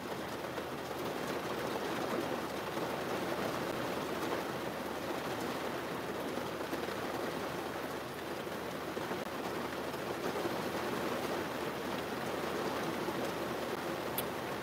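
Steady rain falling on a car, heard from inside the cabin as an even rushing hiss.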